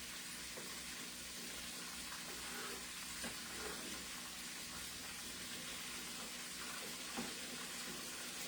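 Chicken pieces frying in hot oil in a pan: a steady sizzle, with a couple of faint knocks.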